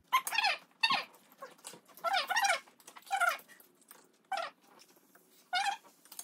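About six short, high-pitched squeaky whines, each with a bending pitch, coming at irregular intervals.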